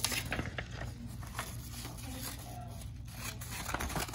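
Sheet of construction paper rustling and crinkling as it is gripped and bent by hand, a quick series of short sharp rustles.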